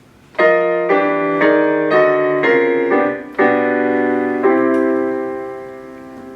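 Piano music: a run of chords struck about twice a second, then a held chord that slowly fades out.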